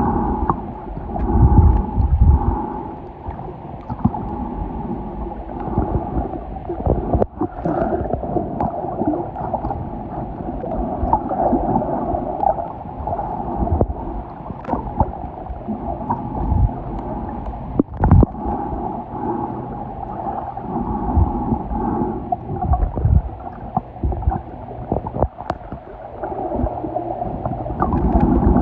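Muffled underwater sound picked up by a submerged camera while snorkeling: continuous sloshing and gurgling water with irregular low thumps.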